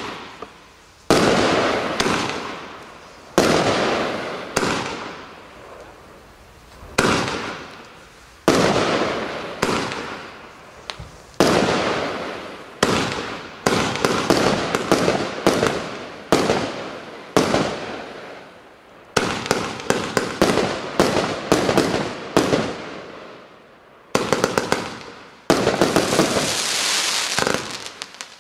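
Fireworks battery (cake) firing: a string of sharp bangs, one every second or two, each trailing off in a fading crackle. It builds to a quicker run of shots in the last few seconds.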